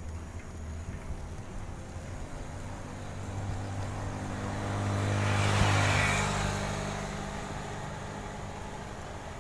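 A motorcycle engine approaching from behind and passing, growing louder to a peak a little past halfway and then fading away.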